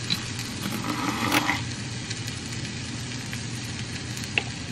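A steady low mechanical hum, with one brief louder handling noise about a second in.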